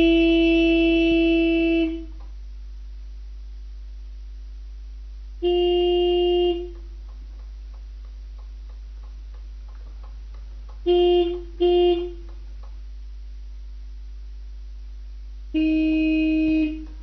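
Tractor horn sounding in separate steady blasts of the same pitch: a long one at the start, another about five seconds in, a quick double honk around eleven seconds, and one more near the end, with a faint steady hum between them.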